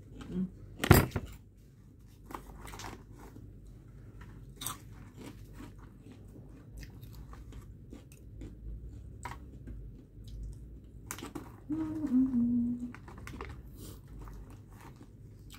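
Crunchy snacks being chewed close to the microphone: a string of crisp crunches, the loudest about a second in. A brief sound of a voice comes about twelve seconds in.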